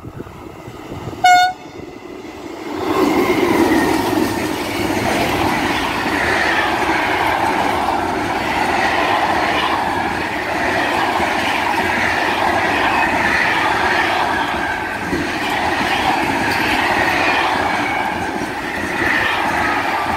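A BB 27000 electric locomotive sounds one short horn toot about a second in. A few seconds later it reaches the camera hauling an intermodal container freight train, and the container wagons roll steadily past with a loud rumble and wheel-on-rail clatter.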